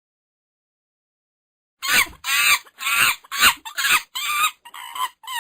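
Monkey calling: after about two seconds of silence, a quick run of short, loud chattering calls, about two a second, each bending in pitch.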